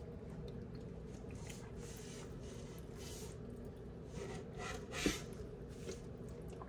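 Soft wet squelching of a hand rubbing marinade into a whole raw chicken in a stainless steel bowl, with a short sharp slap about five seconds in. A steady low hum runs underneath.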